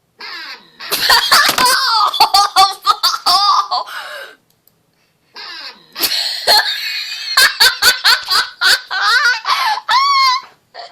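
High-pitched laughing in two long bursts, with a gap of about a second between them.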